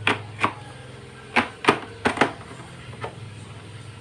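Sharp plastic clicks, about seven at uneven spacing and bunched in the first half, as the all-in-one PC's plastic casing is pried open and its clips snap loose. A steady low hum runs underneath.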